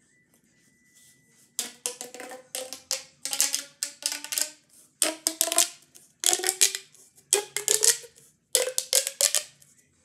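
Plastic pop tube fidget toy being stretched and squeezed, the corrugations snapping over in loud crackling, ratchet-like zips with a buzzing pitch. There are about eight or nine strokes, roughly one a second, beginning a little over a second in.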